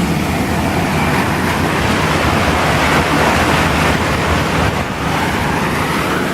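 A car's engine running, with a steady rush of floodwater around the car as it drives through the flooded road. The rushing swells in the middle.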